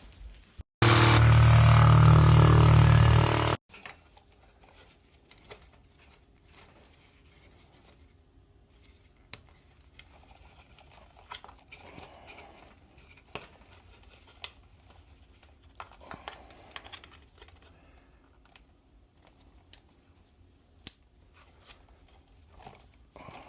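A loud, steady noise with a lot of low end lasts about three seconds near the start, cutting in and out abruptly. After it come faint crinkling and scattered small clicks of a cardboard box and packaging being handled.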